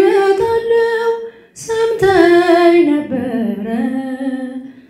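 A woman singing an Ethiopian Orthodox hymn (mezmur) unaccompanied, with long held, wavering notes. She breaks for a breath about one and a half seconds in, then sings a falling phrase that settles on a low held note.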